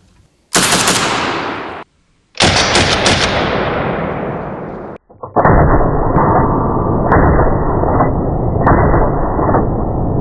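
Short-barreled AK-pattern rifle firing from a bare threaded muzzle with no muzzle brake, in three rapid strings of shots, the last running on to the end; the short barrel leaves unburnt powder to blast out at the muzzle.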